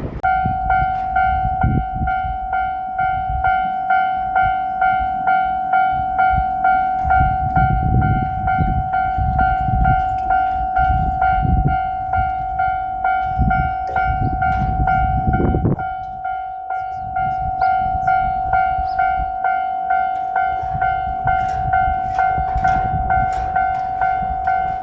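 Japanese level-crossing warning bell ringing steadily, about two strikes a second, while a JR Shikoku 2700-series limited-express diesel train rumbles over the crossing. The rumble is loudest for the first two-thirds, then eases as the bell keeps ringing.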